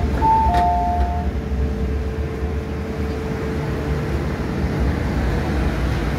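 Two-note electronic door chime of an MTR M-Train, a higher tone then a lower one, sounding just after the start while the doors stand open at a platform. Under it runs the low steady rumble of the stopped train, and a faint steady tone hangs on for a few seconds after the chime.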